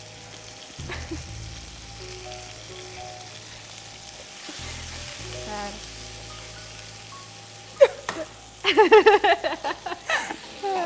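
Food sizzling as it fries in a pan, a steady hiss, under faint background music. Near the end, a short loud burst of a voice rises over it.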